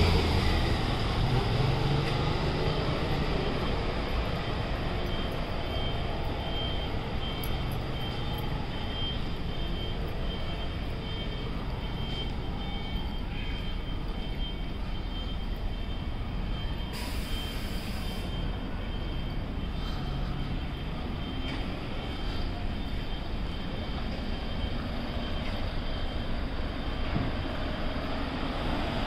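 Steady city traffic noise: vehicles running on nearby streets, with a brief high hiss a little past halfway.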